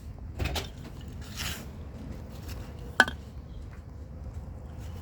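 Rustling and scraping as soil and potato plants are handled during a potato harvest, with one sharp click about three seconds in.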